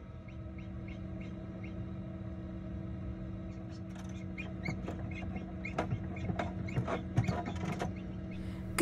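Newly hatched silkie chick peeping in short falling notes, a few a second at first and more irregular and busier from about four seconds in, with scattered scratches and taps as it moves among the shell. A steady hum of the incubator runs underneath.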